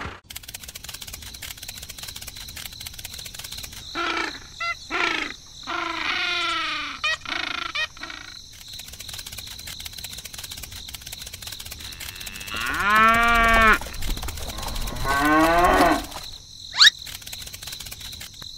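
Cattle mooing: several calls, the longest about two-thirds of the way through, over a steady background hiss. A short, sharp rising whistle near the end.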